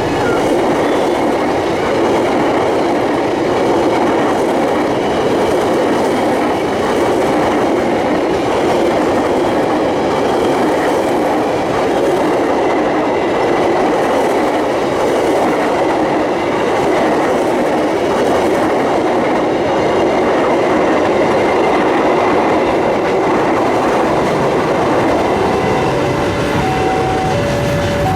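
A long train passing close by: the steady rumble and clatter of its wheels over the rails. Near the end, an alternating two-note tone starts up over it.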